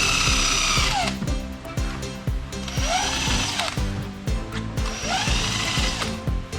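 Drill spinning a rubber eraser wheel against car paint to strip leftover spoiler adhesive, in three runs, each whining up to speed and winding down. Background music with a steady beat underneath.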